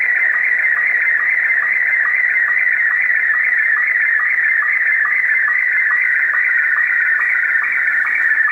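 Slow-scan television (SSTV) signal received over shortwave radio: a continuous warbling tone that wavers in pitch over a background of hiss. A short lower blip recurs a little over twice a second; these are the line sync pulses of a Scottie 1 image being transmitted and decoded line by line.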